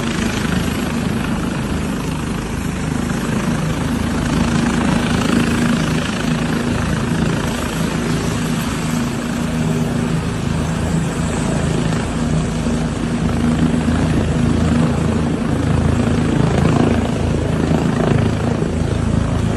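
Military helicopter running on the ground, its engine and rotor making a loud, steady noise.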